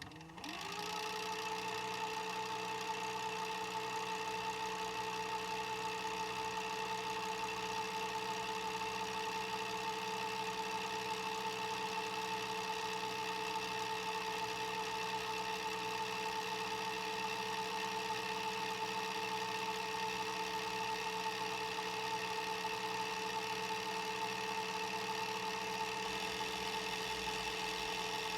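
VCR's tape mechanism running: its motor spins up in the first second, then holds a steady whirring hum with a constant whine.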